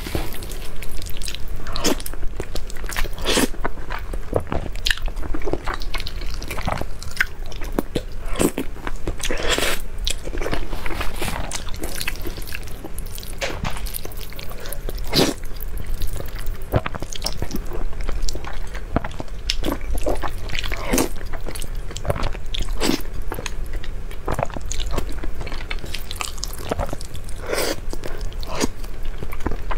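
Close-miked eating of thick noodles in a spicy sauce: wet slurping and chewing, with irregular mouth smacks and clicks.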